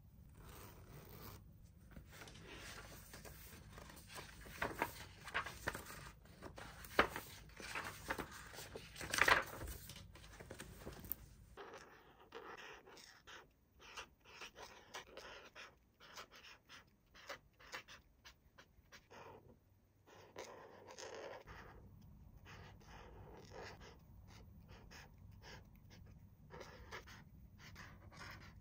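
Toy packaging being handled and opened by hand: a run of irregular clicks, scrapes and rustles, busiest in the first half with a few sharper snaps, then sparser handling with short pauses.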